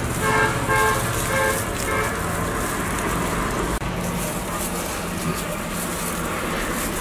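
Steady street traffic noise, with a vehicle horn sounding a run of short toots in the first two seconds.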